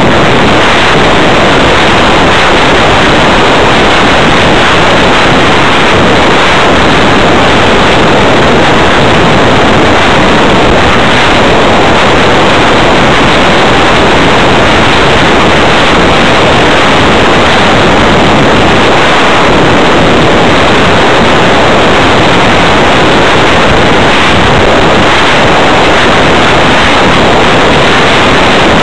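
Loud, steady rush of airflow buffeting the onboard camera's microphone on a Multiplex Blizzard RC hotliner in flight, with no distinct pitch standing out from the motor or propeller.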